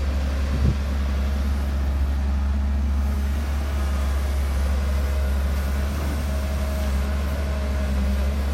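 Dump truck's diesel engine running with a steady low drone.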